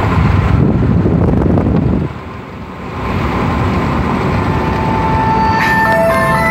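Steady road and wind noise of a car driving along a highway, dipping briefly about two seconds in. Music comes in near the end.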